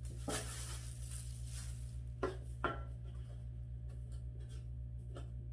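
Parts of an indoor smokeless grill being unpacked and handled: plastic wrapping rustles for the first two seconds, then two light knocks about half a second apart as a tray is fitted into the grill base.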